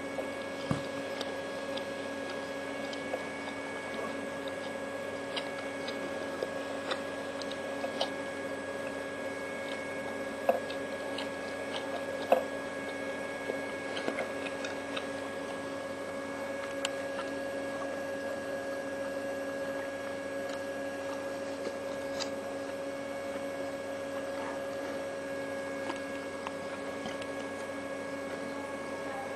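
A steady electrical hum of several fixed pitches, with a few small faint clicks scattered through it.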